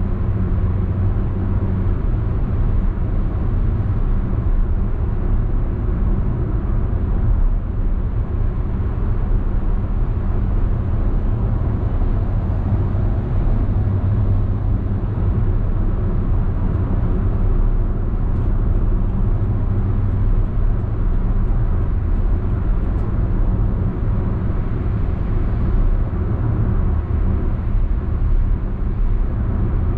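2018 Perodua Alza cruising at highway speed, heard from inside the cabin: a steady low drone of tyre, wind and engine noise.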